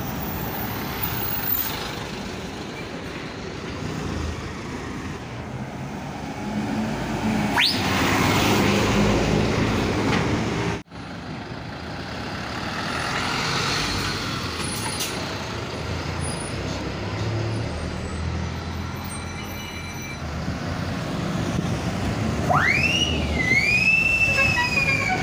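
City buses driving past in street traffic, their diesel engines running, with the sound dropping out for an instant about 11 s in. Near the end a high-pitched tone slides up and down several times.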